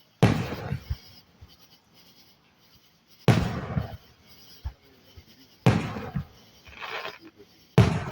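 Fireworks exploding: four sharp bangs a couple of seconds apart, each dying away within about a second.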